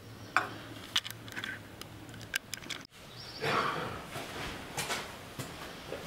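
Scattered light clicks and knocks of hand work on a motorcycle's fuel tank and fittings, with a longer rustling scrape just after the halfway point.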